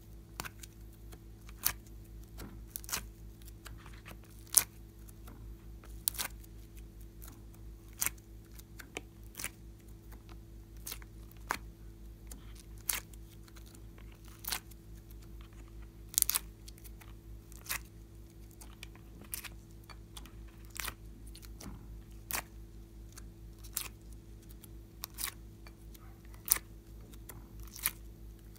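Short sharp clicks and pops, about one every two-thirds of a second, as soft coloured clay shapes are popped out of plastic moulds and pressed onto slime. A low steady hum runs underneath.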